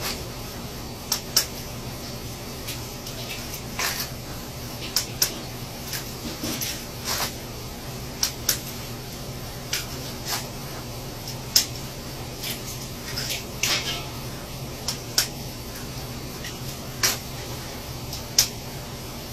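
Steady low hum with scattered sharp clicks and small taps, roughly one every second or two, a few of them louder.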